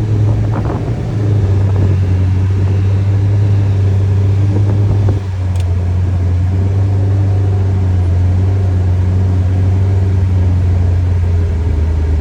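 Kawasaki Ridge XR side-by-side's engine running under way, a steady low drone heard from inside its enclosed cab, with a brief dip in level about five seconds in.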